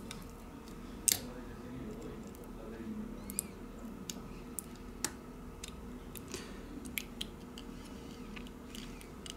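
Metal tweezers working at flex cables on a smartphone motherboard: scattered small clicks and taps, the loudest about a second in, over a faint steady hum.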